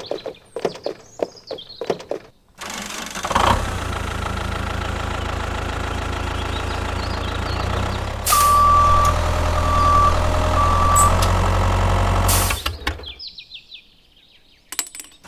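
Tractor engine running steadily from about three seconds in, louder from about eight seconds, with three beeps of a reversing alarm; the engine cuts off abruptly near the end. Light clicks and knocks come before it starts.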